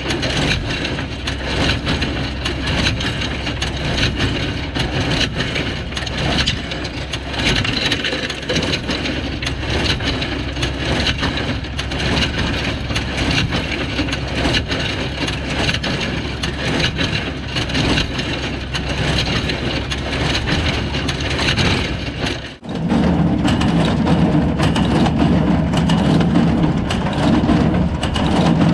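New Holland Super 66 small square baler working behind a Farmall 560 tractor: the baler's drive and plunger rattle and clack continuously over the steady run of the tractor engine. Near the end, after a brief break, a louder, deeper hum takes over.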